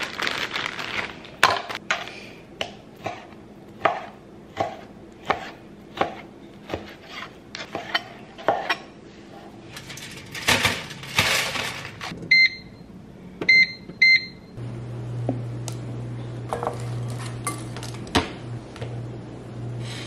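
Kitchen knife cutting raw chicken breast on a plastic cutting board, a knock about every two-thirds of a second. After a short rustling stretch come several short electronic keypad beeps, and then a microwave oven starts and runs with a steady low hum.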